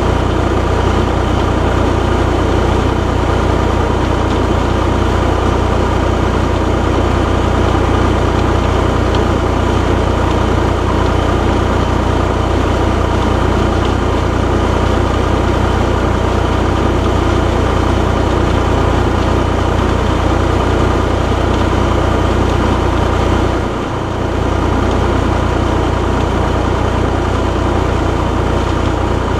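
Fendt 209 F narrow vineyard tractor's diesel engine running steadily at working speed while driving a Binger leaf stripper along the vine row, a constant low drone with mechanical noise over it. The level dips briefly near the end.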